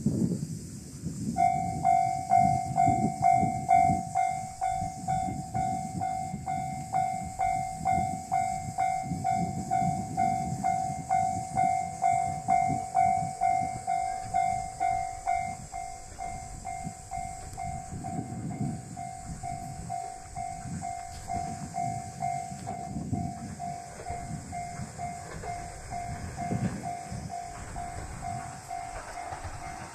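Japanese level crossing warning bell starting about a second and a half in and ringing on in a rapid, even series of electronic dings, signalling that a train is approaching. The ringing is louder for the first half and weaker after that, over a low, uneven rumble.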